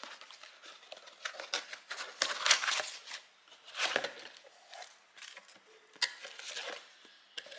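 Cardboard and foam packaging being handled while a portable blender is unboxed: an inner box slid out of its cardboard sleeve and the blender pulled from its foam insert, with irregular scraping and rustling and a few light knocks.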